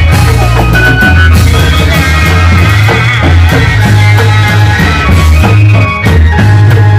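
Loud amplified music of a reog bleknong troupe: a heavy bass line that changes note about every half second under sustained high melody notes, with drums.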